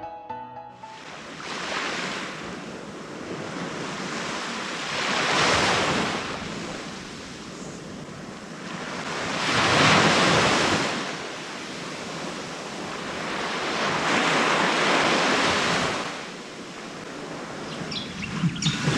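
Small waves breaking on a sandy beach, the surf swelling and washing in about every four to five seconds.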